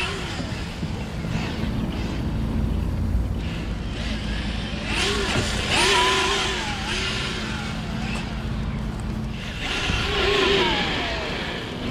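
Fuze 5800kv brushless motor of a Redcat Gen8 Scout II 1/10-scale RC truck whining up and falling back in pitch in short bursts of throttle, three times, with the tyres scrabbling and throwing loose shell gravel.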